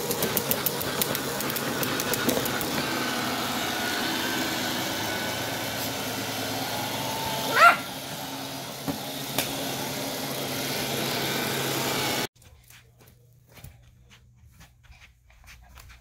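Robot vacuum running with a steady motor hum and brushing noise, with some clicking early on, while a Yorkshire terrier gives one short, loud yelping bark that rises in pitch about seven and a half seconds in. The vacuum noise cuts off abruptly about twelve seconds in, leaving only faint room sound.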